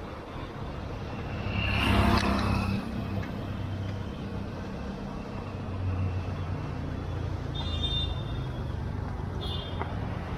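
Street traffic: the steady hum of vehicle engines on the road, swelling as a vehicle passes about two seconds in. Two short high-pitched sounds come near the end.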